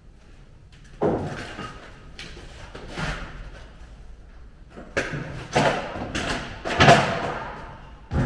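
Half a dozen irregular knocks and thumps from work on a car body shell, each with a short ringing tail, the loudest about seven seconds in.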